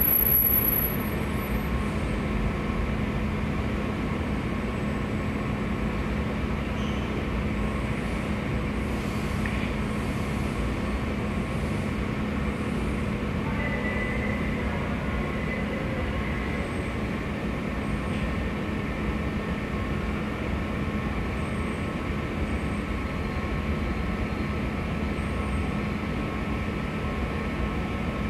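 Washington Metro subway train at the station: a steady hum and rumble that holds level, with a brief high squeal in the first second.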